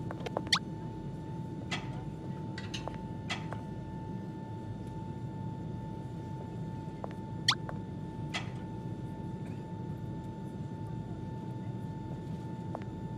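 Steady airliner cabin hum with a faint constant tone. About six short, high squeaks break over it, the loudest about half a second in and again about seven and a half seconds in.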